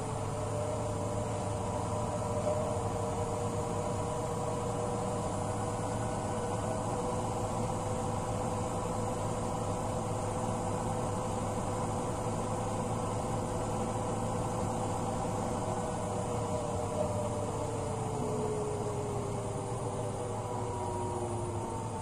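Front-loading washing machine on a spin cycle: a steady motor whine over a low hum from the spinning drum. The whine falls in pitch over the last few seconds.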